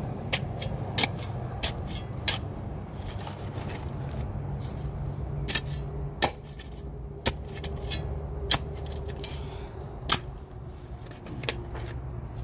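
A steel round-point shovel chopping and scraping into wet clay soil while a planting hole is dug: about ten sharp strikes at irregular intervals, over a steady low hum.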